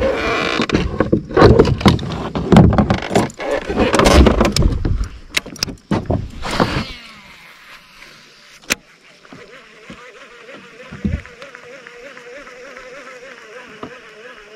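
Loud rustling, clicks and knocks of a hand handling the camera for about the first seven seconds. Then a baitcasting reel is cranked, giving a faint, steady whir that wavers slightly in pitch as the lure is retrieved.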